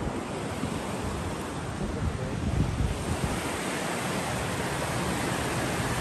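Steady rush of a waterfall and the creek below it, with wind buffeting the microphone in places.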